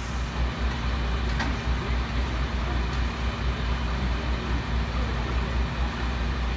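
Fire engine's diesel engine running steadily, a low rumble. A single brief click about a second and a half in.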